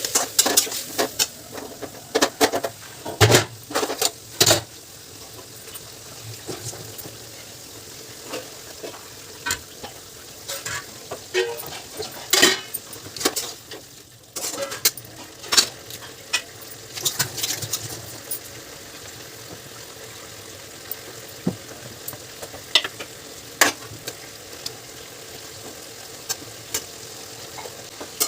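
Food sizzling in a pan while a utensil stirs and scrapes against it. Sharp clinks and scrapes come in clusters in the first few seconds and again in the middle, with only a few toward the end.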